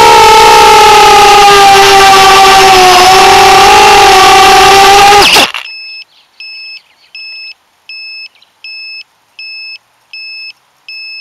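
FPV quadcopter's motors and propellers whining loudly and steadily, dipping slightly in pitch, then cutting off abruptly about five seconds in. The quad's onboard buzzer follows, beeping evenly about one and a half times a second.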